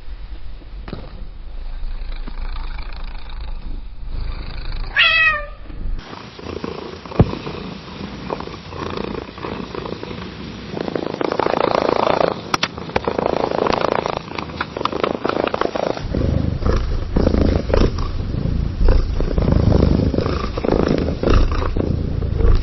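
Cats purring in three successive recordings, each with its own rhythm; the sound changes abruptly about six seconds in and again near sixteen seconds. Later the purr swells and fades in a steady rhythm with each breath. About five seconds in there is a brief high squeak that falls in pitch.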